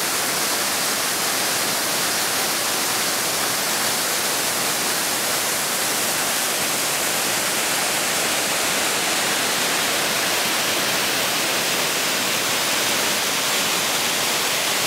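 Steady rushing of a mountain waterfall pouring down a rock face, an even hiss that does not let up.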